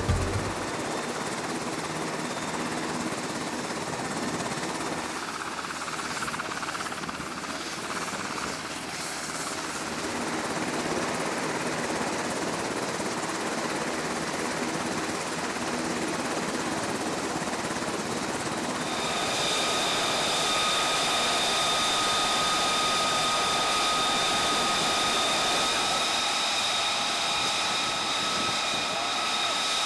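Steady rushing noise of jet aircraft on a ship's flight deck; about two-thirds of the way in, a high, steady turbine whine joins and the noise grows a little louder.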